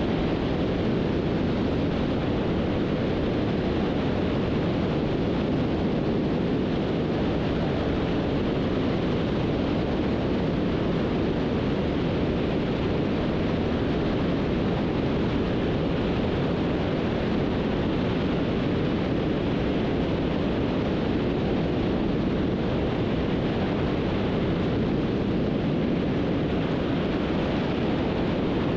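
Beech 18's twin radial engines running steadily, heard as constant engine and wind noise inside the aircraft.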